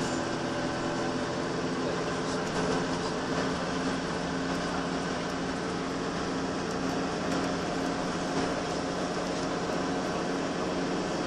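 Inside a Volvo B10BLE single-deck bus on the move: the rear-mounted six-cylinder diesel runs at a steady pitch under an even rush of road and tyre noise, with small interior rattles.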